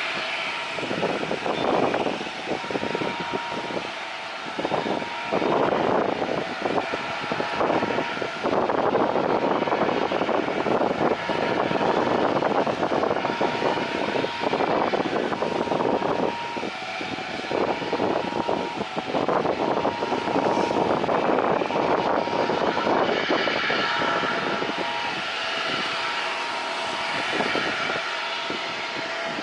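Jet airliner engines whining as the plane passes low on approach to land, with strong gusty wind buffeting the microphone in uneven surges.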